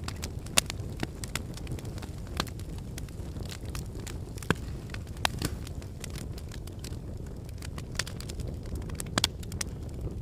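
Wood fire burning in a fireplace: a steady low rumble of flames with sharp, irregular crackles and pops from the burning logs.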